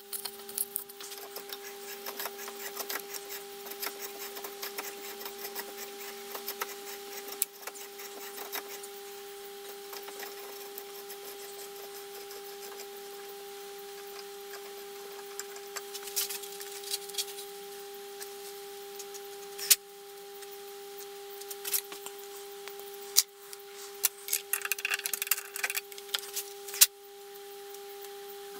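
Scattered light metallic clicks and clinks of hand tools as a thread tap and T-handle tap wrench are worked and handled, over a steady hum. A few sharper clicks come about twenty seconds in, and a quick run of rattling clinks near the end.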